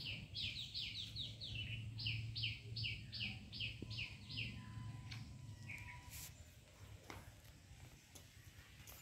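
A small bird singing: a fast series of repeated downward-slurred notes, about three a second, in two runs with a short break about two seconds in, stopping about four and a half seconds in.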